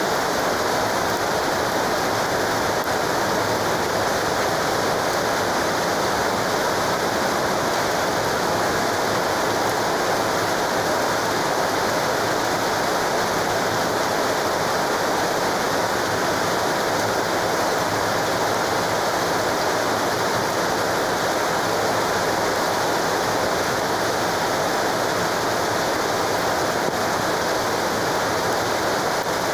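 Very heavy rain pouring down: a steady, unbroken rush of a torrential downpour.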